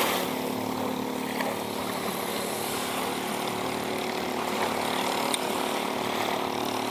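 Long-tail boat engine idling with a steady, even hum.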